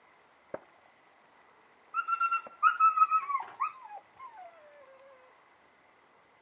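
Young Belgian Malinois whining: a run of high, wavering whimpers for about two seconds, ending in one long whine that falls in pitch.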